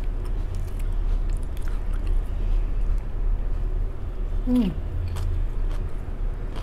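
Close chewing and biting of crisp fresh lettuce salad, with faint crunchy clicks, over a steady low hum. A short falling vocal sound comes about four and a half seconds in.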